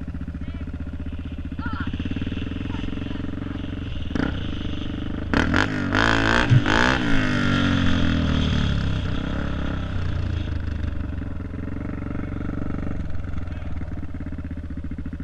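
Dirt bike engine idling steadily, then revved and accelerating about five seconds in, its pitch climbing and falling a few times before it settles back to a steady run.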